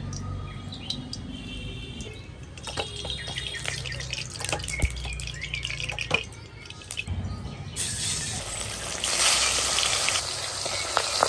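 Oil trickling into a large wok, then pieces of turmeric-coated silver carp slid into the hot oil, which starts sizzling about eight seconds in and gets louder a second later.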